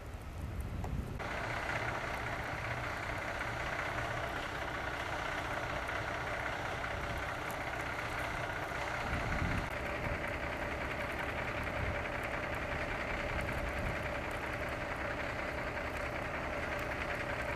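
Vehicle engine running with a steady low rumble, joined about a second in by a steady mechanical whine that cuts in suddenly.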